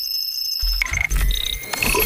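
Electronic sound effects: a high steady tone, then short beeps at different pitches over a low rumble.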